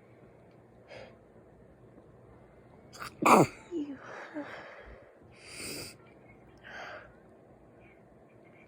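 A woman sneezes once, sharply and loudly, about three seconds in, her voice dropping steeply in pitch through the sneeze. A few quieter breaths and sniffs follow.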